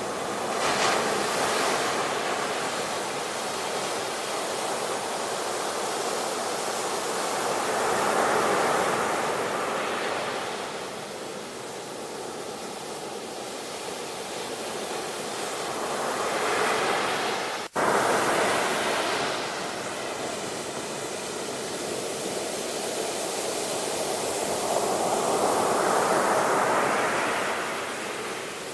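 Ocean waves breaking and washing up the shore in slow swells, four surges about every eight or nine seconds. There is a brief sudden dropout about two-thirds of the way through.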